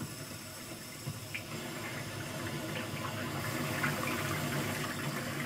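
Water rushing through the supply pipe into a newly installed electric water heater tank as it fills, a steady hiss that grows slightly louder.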